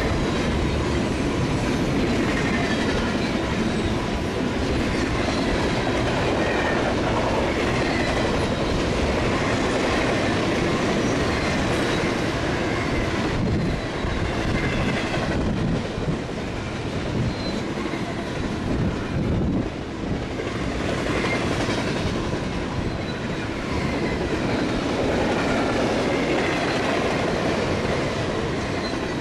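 BNSF double-stack intermodal freight train rolling past at close range: a loud, steady rumble and rattle of container cars and wheels on the rail.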